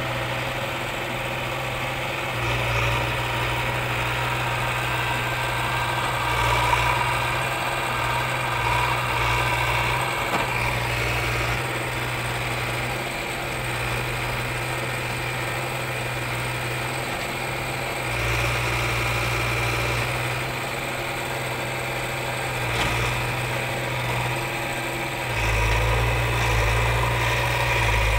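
JCB 3DX backhoe loader's diesel engine running steadily and revving up several times under load as its hydraulic backhoe arm works the soil heap and the machine climbs onto it.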